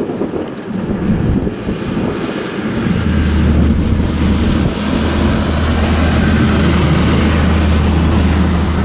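Steady wind and road noise from a vehicle driving through a blizzard, with a low steady drone that sets in about three seconds in.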